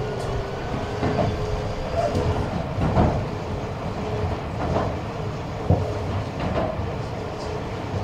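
Tobu 50000-series electric commuter train running between stations, heard from inside the passenger car. A steady low rumble of wheels on track, with the clack of a rail joint roughly every second.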